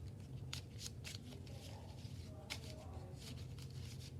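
Homemade taped paper card packs being handled and mixed up: a few short rustles and taps, over a steady low hum.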